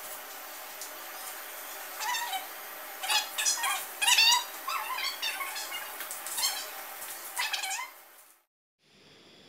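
Pot of soup boiling on a gas burner, a steady hiss. From about two seconds in, a run of short high-pitched calls sounds over it, loudest around the middle, ending about a second before the end.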